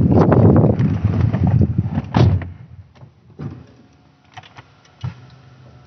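Wind and handling noise on the phone as someone climbs into a Toyota Prius, then the car door shutting with one sharp bang about two seconds in. After that the cabin is quiet apart from a few small knocks.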